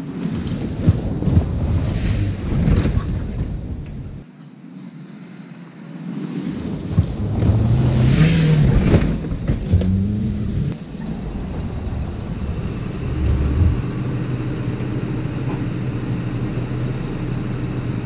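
Toyota RAV4 engine running while driven off-road, with a run of knocks over rough ground. About halfway through the revs rise and fall twice, then the engine settles into a steady drone, with wind on the microphone.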